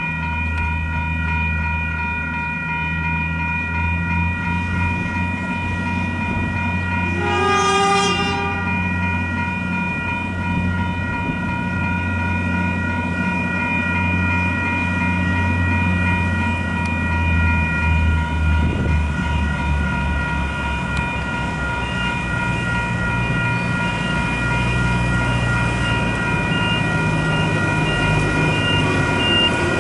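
Level crossing alarm ringing steadily while a KiwiRail DSG diesel shunting locomotive rumbles up to and across the crossing, hauling container wagons. The engine note swells and changes, and the wagon wheels clatter about two-thirds of the way through.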